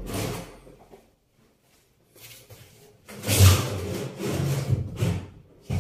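A sink base cabinet being shoved back against the wall, scraping and rubbing across the floor in bursts, with a sharp knock near the end.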